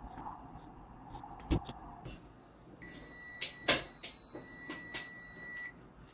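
Multimeter continuity buzzer giving one steady high beep for about three seconds, starting a little before halfway, while its probes touch across a freshly soldered glass fuse: the sign of an unbroken path through the fuse. A few sharp clicks come from the probes and parts being handled.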